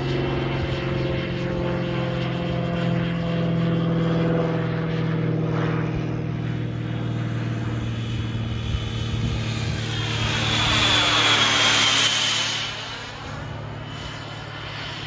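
Small model jet turbine (Xicoy X45) flying a model F-22 past, its high whine and rush swelling to a peak about twelve seconds in, then fading as it flies away. A steady low drone runs under the first half.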